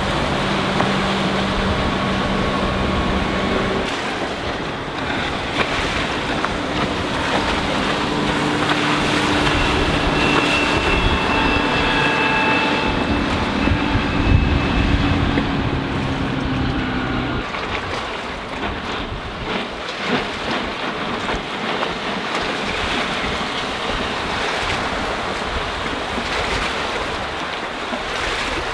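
Motorboat engine running with a steady hum and a slightly falling whine, over rushing water and wind on the microphone. About two-thirds of the way through the engine tone stops, leaving wind and water noise.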